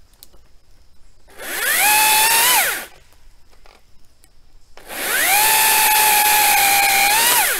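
Makita XAU02PTB 36V cordless brushless pole saw's electric motor and chain running in two bursts: each winds up to a steady high whine, holds, then winds down when the trigger is released. The second, longer burst is the chain cutting into a limb of a downed tree.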